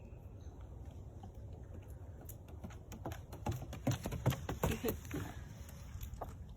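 Footsteps on a leaf- and stick-strewn woodland trail: irregular crunching and tapping steps that grow busier and louder in the middle, over a low steady rumble.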